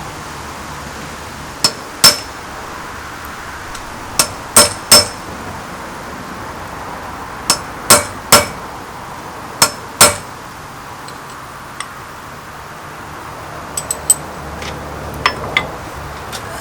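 Blacksmith's hammer striking a steel spanner on an anvil during forging. The blows are sharp and ringing and come in short groups of two or three, with a few lighter taps near the end.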